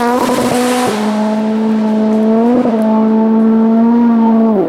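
Rally car engine held at high, nearly steady revs, with a couple of short dips in pitch, then the revs fall away sharply near the end as the throttle is lifted.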